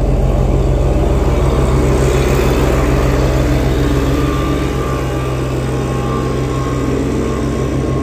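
Ammann tandem asphalt roller's diesel engine running steadily as the roller moves over fresh asphalt, passing close by.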